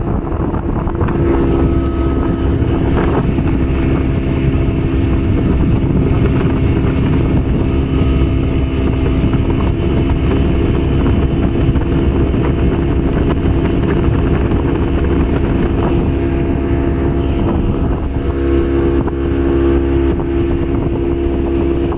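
40-horsepower outboard motor running steadily as it drives a small open boat at speed, with wind buffeting the microphone. The engine's hum grows stronger a few seconds before the end.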